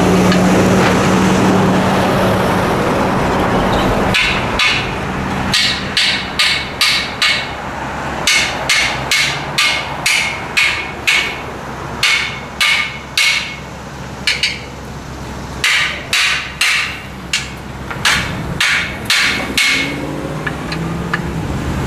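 Hammer striking a manhole riser ring to seat it in the manhole frame: about thirty sharp, ringing metallic hits in quick clusters of two or three a second, starting about four seconds in, with a short pause near the middle.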